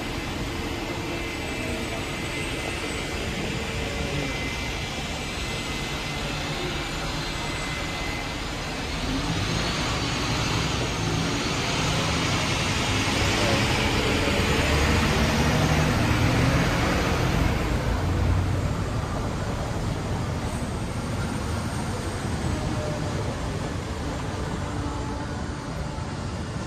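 City street traffic, with one vehicle passing close and getting louder then fading over several seconds around the middle.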